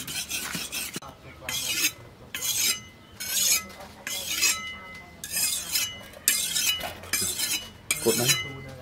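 Steel cleaver blade, forged from a tractor plough disc, scraping back and forth across a wet sharpening stone by hand: about ten even strokes, a little more than one a second.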